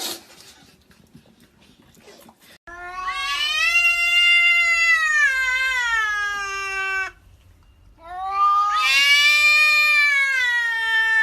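A pet animal making two long, drawn-out vocal calls, the first starting about two and a half seconds in. Each call rises and then slowly falls in pitch, with a short pause between the two.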